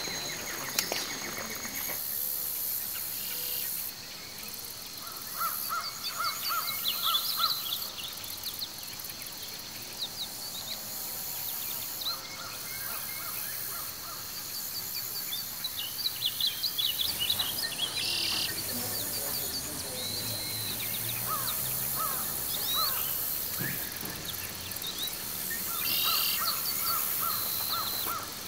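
Tropical forest birds calling and chirping over a steady high hiss, with a few short runs of quickly repeated notes.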